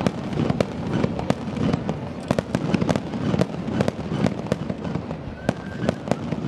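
Fireworks display with aerial shells bursting: an irregular run of sharp bangs and cracks, several a second.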